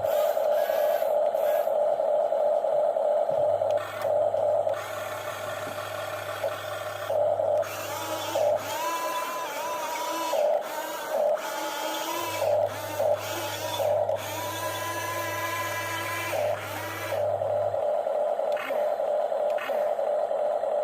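Small electric motors and gearboxes of remote-control excavator models whining, running steadily at first, then starting and stopping in many short bursts through the middle with a higher whine at times, before running steadily again.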